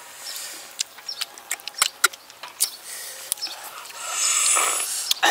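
Irregular sharp clicks of grilled apple snail shells knocking against a wire grill rack and each other as they are picked up and worked open. A long breathy hiss comes about four seconds in.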